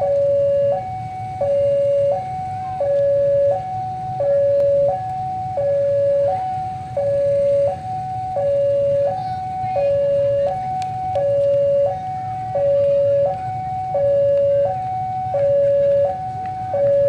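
Railway level-crossing warning alarm sounding its electronic two-tone signal, switching between a low and a higher tone about every three-quarters of a second, the warning that a train is approaching. A steady low rumble lies underneath.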